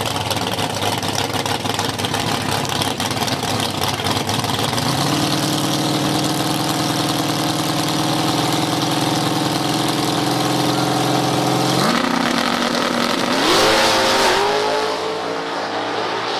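Drag-race cars at the starting line, one a Fox-body Mustang, idling with a rough lope, then held at a steady higher rpm for several seconds while staged. About twelve seconds in they launch: the engine notes jump, rise in pitch through the gears and fade as the cars pull away down the strip.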